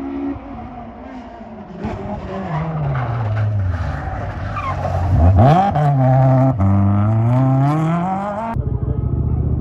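Rally car's engine falling in pitch as it comes down through the gears braking into a junction, with a sharp rev blip around the turn, then rising again as it accelerates away. The sound cuts off abruptly near the end.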